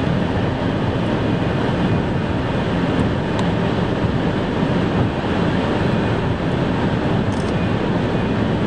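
Steady road and wind noise of a car driving at speed, with a constant low rumble.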